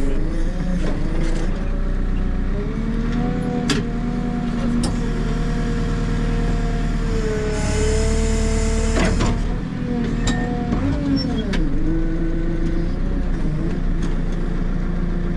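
JCB 3CX backhoe loader's diesel engine running under hydraulic load, its revs dipping and rising several times as the hydraulics work, with a few sharp metal knocks and a short hiss.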